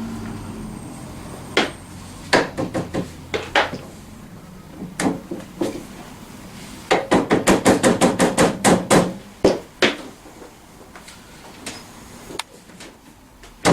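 Hammer tapping a scooter's front axle bolt through the wheel hub and fork. The taps come in irregular groups: scattered strikes at first, then a quick run of several taps a second in the middle, then a few fainter taps near the end.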